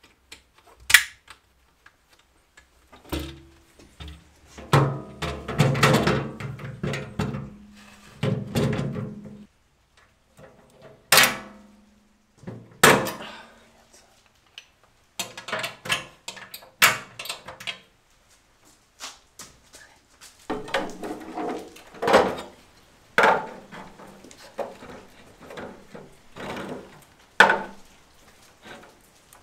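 Irregular knocks, clicks and clatter of metal electrical-enclosure parts being handled and fitted together, with a few longer stretches of busier rattling.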